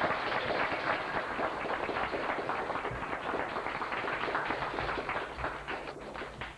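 Audience applauding: a dense patter of many hands clapping that thins to a few separate claps near the end.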